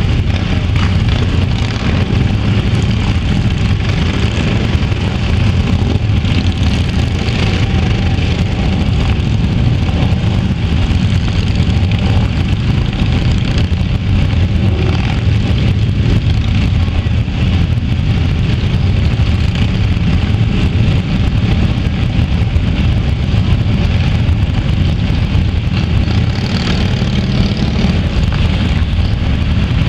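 A large pack of motorcycles, many of them cruisers, riding past at walking pace: a dense, steady mass of engine noise from many bikes at once, with no single machine standing out.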